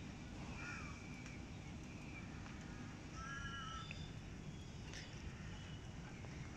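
Faint bird calls, a few short pitched notes, over a low steady background rumble.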